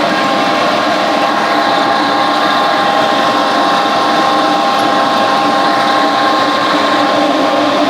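Industrial sand-drying kiln running steadily: a constant mechanical noise with a steady high whine over it, unchanged throughout.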